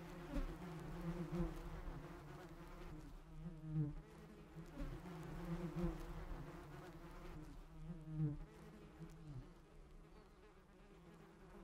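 A low buzz of flying insects that wavers in pitch and swells and fades several times.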